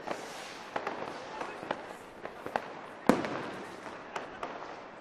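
Fireworks going off: an irregular scatter of firecracker bangs and pops, with one loud bang about three seconds in that rings out as it fades.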